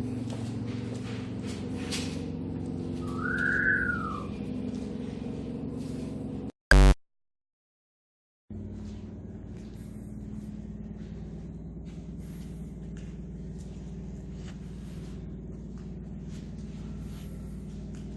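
Steady low machine hum with scattered clicks and ticks, and a short rising-then-falling whistle-like tone a few seconds in. About halfway through, a brief loud blip is followed by a second and a half of dead silence before the hum resumes.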